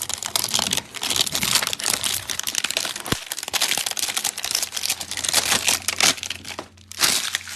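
Plastic packaging crinkling and rustling with quick sharp crackles, as a box of card supplies is rummaged through to look for penny sleeves.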